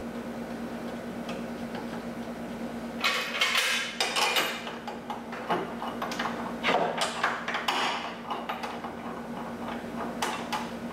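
Light metallic clinks and clatter of a steel pry bar and an engine-mount bolt being worked by hand into its bracket, scattered irregularly from about three seconds in, over a steady low hum.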